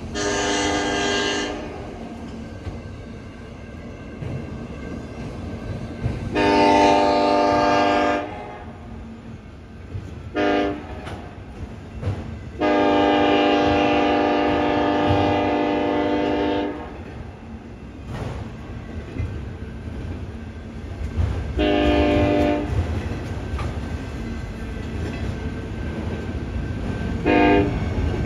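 Nathan K5LLA five-chime locomotive air horn sounding a series of blasts, long, long, short, then a long held one: the grade-crossing signal. Another blast follows later, and a short one near the end. Between the blasts the rolling autorack cars rumble and clack.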